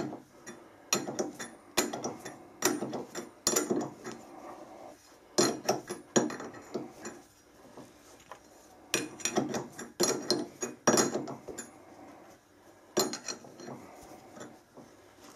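A 10 by 1.5 thread being cut by hand with a button die in a spanner-type die holder, on a metal pin held in a lathe chuck. Irregular bursts of metallic clicking and scraping come as the die is turned, with short pauses between them.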